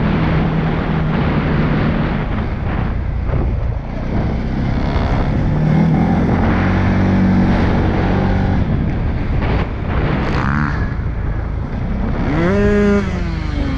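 CFMOTO CForce 625 ATV's single-cylinder four-stroke engine running under way, its pitch climbing as it speeds up partway through, with wind on a helmet microphone. Near the end an engine revs sharply up and back down.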